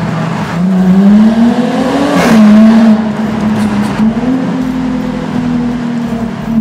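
Jaguar F-Type R-Dynamic's supercharged V6 accelerating hard through a tunnel. The exhaust note rises, then drops at an upshift about two seconds in with a short crack, and holds steady under load.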